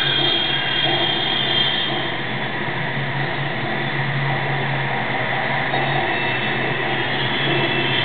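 A steady droning noise with a low hum underneath, holding at the same loudness throughout.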